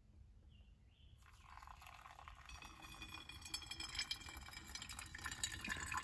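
Water poured from a stainless steel kettle into a paper coffee filter in a pour-over cone, starting about a second in and growing gradually louder.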